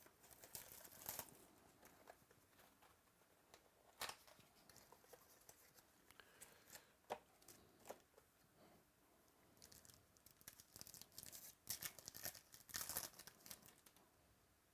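Faint tearing and crinkling of wrapping as a box of 2017 Topps Gold Label baseball cards and its packs are opened. There is a sharp single rip about four seconds in and a denser run of crinkling from about ten seconds in.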